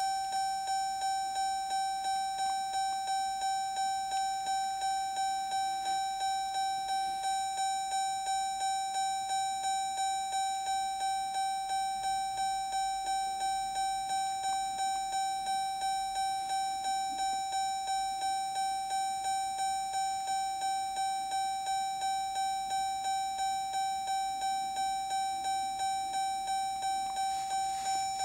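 Car's door-ajar warning chime ringing over and over, a single pitched chime repeating about twice a second, set off by the driver's door standing open with the ignition key in the run position.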